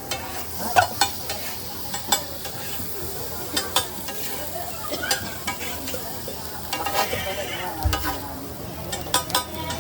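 Egg tikki frying with a steady sizzle. Scattered sharp taps and scrapes of a cooking utensil on the hot pan run through it.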